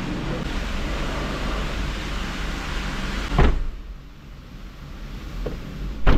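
A steady rushing noise, then a car door slams shut about three and a half seconds in, after which it goes much quieter. A second bang follows near the end.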